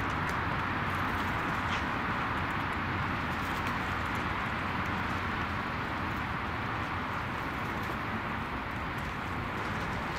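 Steady outdoor background noise: an even hiss with no clear events, and a few faint, short high ticks.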